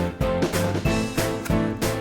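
Upbeat background music with a steady beat of about three strokes a second and plucked, pitched notes.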